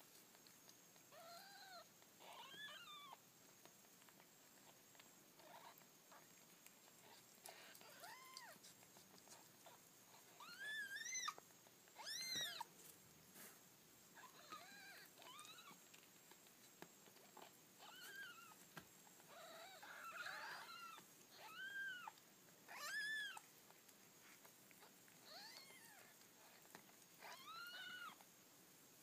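Newborn kittens mewing: a dozen or more short, thin, high calls that rise and fall in pitch, coming every second or two, a few louder ones about twelve and twenty-three seconds in.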